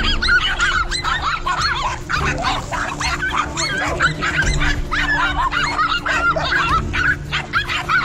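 A pack of dogs barking and yapping in rapid, overlapping, high-pitched barks, with no let-up.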